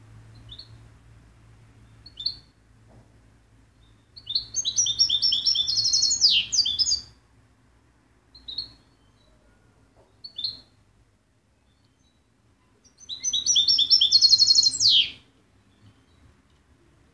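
European goldfinch singing: two fast twittering song phrases of about three and two seconds, each ending in a falling buzzy sweep, with single short call notes between them.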